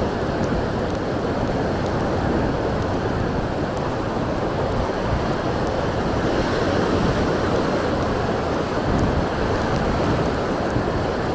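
Sea surf washing in on a beach under a strong wind, with wind buffeting the microphone as a steady low rumble.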